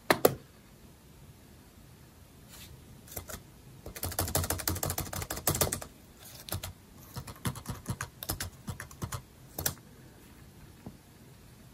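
Typing on an iBook G4's built-in laptop keyboard to enter a password: one click just after the start, a quick run of keystrokes about four seconds in, then scattered key presses ending with a sharper one near ten seconds.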